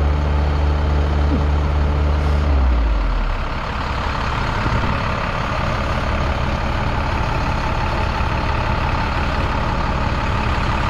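Mini excavator's small diesel engine working under heavy load, its steady note sagging in pitch about three seconds in as it bogs down, then a rougher, noisier churn as the tracks claw for traction.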